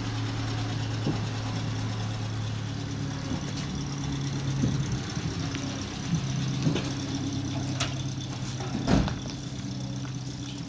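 Zastava Yugo's four-cylinder engine running under load as the little car pushes a dead car along, its note rising and falling a few times with the throttle. A couple of sharp knocks come near the end.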